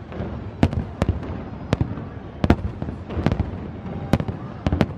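Aerial fireworks shells bursting: a string of sharp bangs, about seven in five seconds at uneven spacing, with a low rumble of echoes between them.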